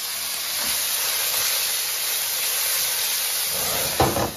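Sliced chicken sizzling in hot oil in a wok, a steady hiss. About four seconds in, a short loud burst as flames flare up over the wok.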